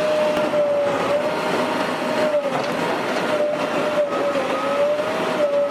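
Demolition bulldozer running hard, a steady engine and hydraulic whine over a dense rumble and clatter.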